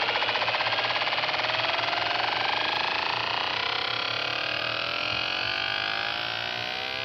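A MIDI file played by a phone's software synthesizer at an extreme and accelerating tempo: the notes come so fast that they blur into a buzzing, rapidly pulsing drone with many pitches sweeping up and down at once.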